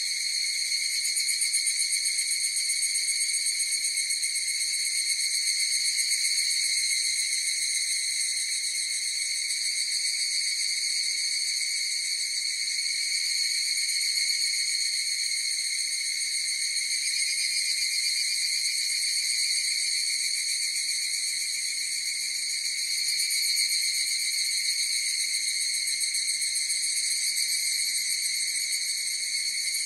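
Chorus of higurashi (evening cicadas, Tanna japonensis) calling without a break: a steady, high ringing drone that swells and eases slightly in loudness.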